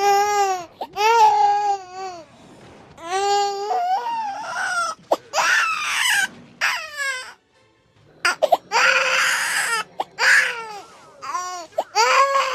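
A baby crying loudly in a string of high wailing cries, each a second or two long with short breaks between, one turning into a rough scream a little past the middle.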